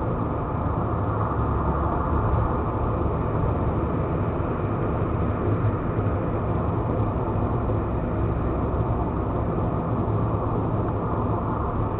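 Steady road and engine noise inside a car cruising on a highway, with no warning beeps.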